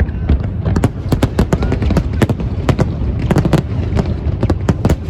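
Aerial fireworks bursting in rapid succession: sharp bangs and crackles, several a second, over a continuous low rumble.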